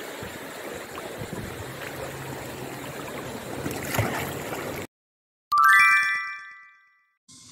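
Shallow seawater splashing as a small dog wades through it, louder about four seconds in. After a brief silence, a bright rising chime sounds and rings out, and music starts near the end.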